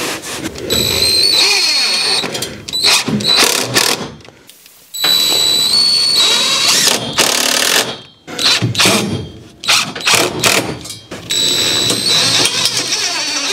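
Handheld power drill running in three bursts of a few seconds each, with a steady high whine, and clicks and knocks of handling in the gaps between them.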